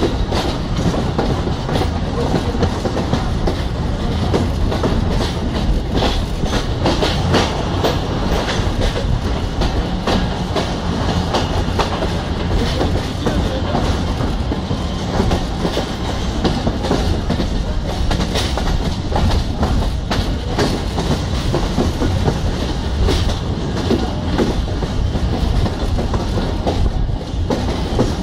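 Passenger train coaches rolling along the track, heard from an open doorway: a steady rumble of steel wheels on rail with a continuous rapid clatter of clicks as the wheels cross rail joints.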